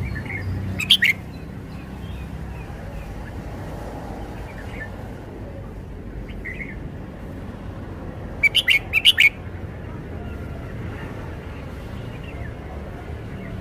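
Red-whiskered bulbul singing short, sharp whistled phrases: a brief one about a second in and a quick run of five or six notes after about eight seconds, with a few faint single notes between, over a steady low background rumble.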